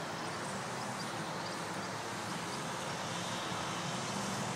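Steady outdoor background noise of distant road traffic.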